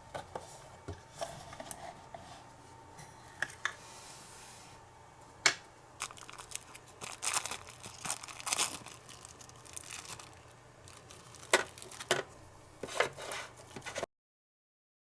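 Small handling noises of miniature toy cooking work: light rustling and crinkling with scattered clicks and taps in irregular bursts. Two sharp taps, about five and a half and eleven and a half seconds in, are the loudest, and the sound cuts off to dead silence about a second before the end.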